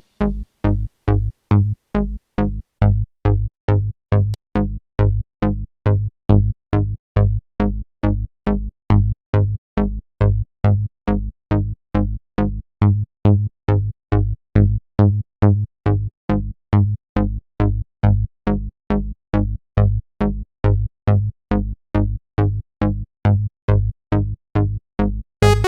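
Italo dance track in a stripped-back section: a lone electronic beat of short, deep pulses, about two and a half a second, with silence between them. A fuller synth sound comes in right at the end.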